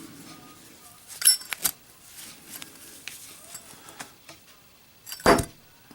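Zippo lighter in a street chrome case with a steel insert: two sharp metallic clicks about a second in as it is opened and struck, then a heavier knock near the end as the lit lighter lands in a drop test.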